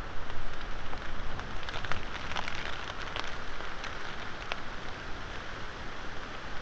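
Wind and rain on an outdoor wildlife-camera microphone: a steady hiss with a low rumble, and sharp raindrops ticking close by, most of them between about one and five seconds in.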